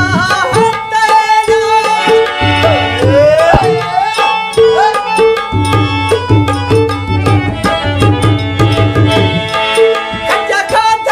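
Folk song instrumental: a harmonium holding a reedy melody over a steady hand-drum rhythm with deep, ringing bass strokes, with a few sliding vocal-like glides about three seconds in.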